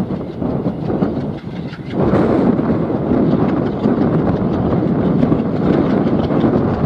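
A train running on the rails, a dense clattering noise of wheels and running gear that grows louder about two seconds in.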